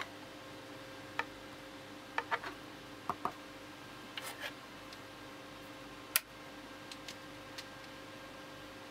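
Faint scattered clicks and taps of a vinyl record being handled on a turntable, over a steady low hum, with the stylus off the record so no music plays. The clicks come singly and in quick pairs and threes, the loudest a sharp click about six seconds in.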